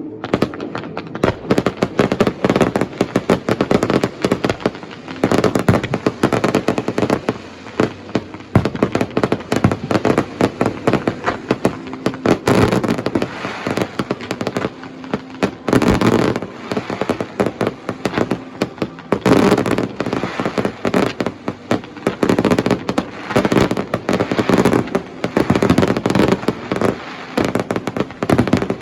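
Fireworks display: a continuous barrage of rapid bangs and crackling, swelling into heavier volleys every few seconds.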